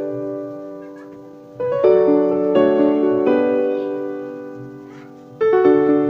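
Background piano music: slow chords that ring out and fade away, with new notes struck about a second and a half in and again near the end.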